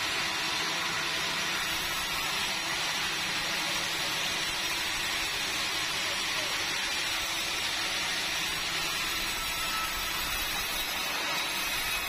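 Sawmill band saw running steadily: a continuous, even machine noise with no distinct knocks or breaks.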